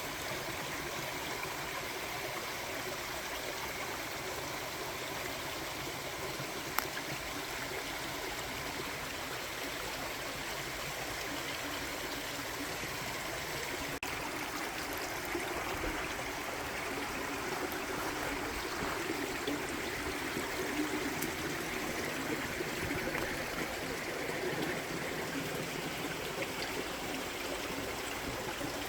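A stream running steadily, with one sharp click about seven seconds in.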